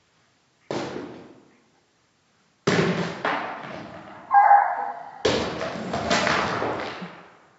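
Slowed-down, deepened blows of a hand tool smashing a gingerbread house: three heavy thuds, each followed by a long, drawn-out crunching and scattering of breaking gingerbread. A brief drawn-out, voice-like sound comes between the second and third blows.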